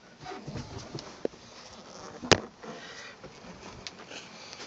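Handling and movement noise as a phone camera is carried around a boat cabin: scuffing and rustling, a light click, and one sharp knock a little over two seconds in, which is the loudest sound.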